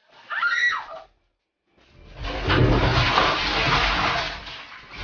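A brief cry with gliding pitch near the start, then a short gap, then from about two seconds in a loud stretch of water rushing and splashing with a low rumble.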